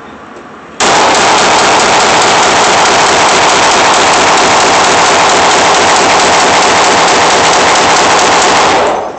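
Rapid gunfire from a Springfield 9mm handgun, heard as one unbroken, very loud noise that starts suddenly about a second in and cuts off near the end.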